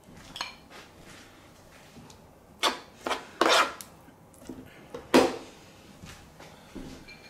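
Dishes or food containers being handled and set down: a few separate clatters and knocks, the loudest about halfway through.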